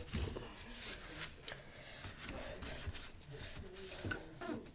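Sponge scrubbing and wiping around the door of a front-loading washing machine, in short irregular rubbing strokes.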